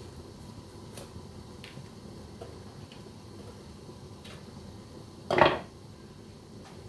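Kitchen handling sounds: a few faint clicks, then one short, loud rasp lasting about a third of a second, a little over five seconds in.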